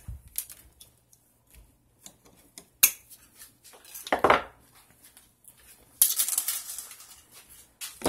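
Wire cutters snipping off the excess of a thin resistance wire, with a few scattered sharp metallic clicks and clinks. About six seconds in, a second or so of rustling handling noise.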